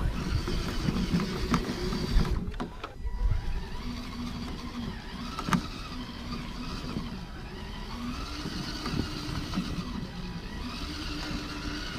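Electric motor and geartrain of a radio-controlled rock crawler whining as it climbs rock, the pitch rising and falling with the throttle. There is one sharp tick about five and a half seconds in.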